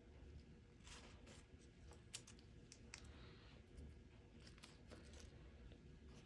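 Near silence: quiet room tone with a few faint, scattered clicks and light handling taps.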